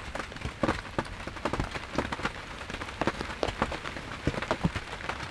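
Steady rain, with many irregular sharp taps of heavy drops striking a surface close to the microphone.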